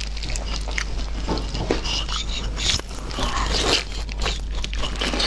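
A person tearing apart a piece of boiled meat with plastic-gloved hands, then biting into it and chewing, close to the microphone: an irregular run of wet clicks and smacks.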